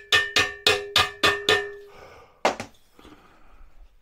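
A mallet striking a steel bracket of a metal modular shelving unit to seat it on the uprights. About six quick strikes come in the first second and a half, each leaving a short metallic ring, then two more strikes a moment later.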